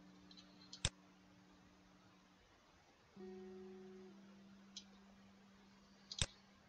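Soft background acoustic guitar music: a plucked chord rings out and fades, and another is struck about three seconds in. Two sharp clicks sound, about a second in and near the end.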